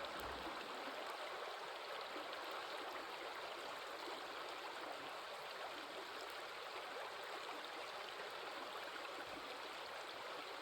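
Stream water flowing with a steady, even rushing that does not change.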